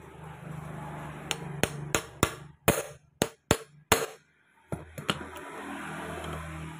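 Hammer striking an impact screwdriver, about ten sharp metal blows: a quick run of eight, then two more. The blows are driving the impact driver to loosen a stubborn starter-motor mounting bolt.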